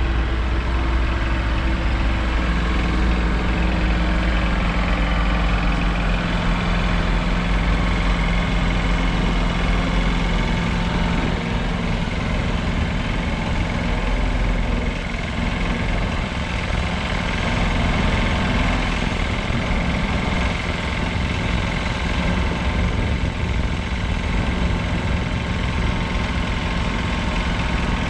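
Wheel loader's diesel engine running steadily while it works a vacuum lifter to lay concrete road plates.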